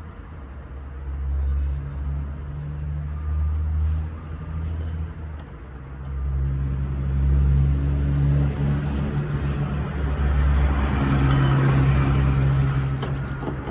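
A vehicle engine running with a steady low hum that swells and eases, growing louder from about six seconds in.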